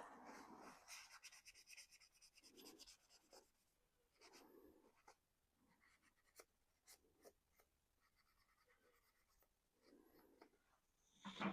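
Faint scratching and rubbing of hand work on a 3D-printed plastic model body, with a quick run of fine ticks about a second in. A few quiet breaths come between the strokes.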